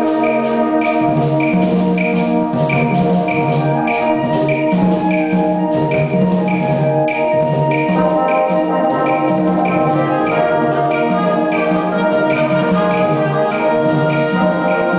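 Concert band playing: held wind and brass chords over a steady percussion pulse of about three to four strokes a second, with a low brass line moving underneath. The harmony shifts about eight seconds in.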